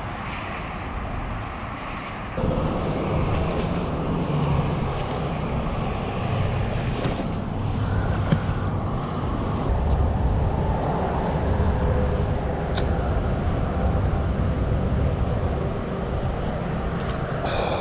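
Wind buffeting the microphone: a steady, low-heavy noise that gets louder about two seconds in.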